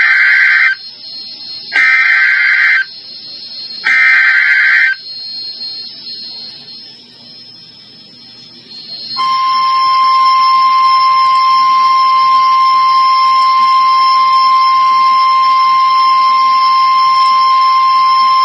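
Emergency Alert System header on NOAA Weather Radio: three one-second bursts of digital data tones, about two seconds apart. After a pause of a few seconds, the steady single-pitch warning alarm tone starts about nine seconds in, announcing a severe thunderstorm warning.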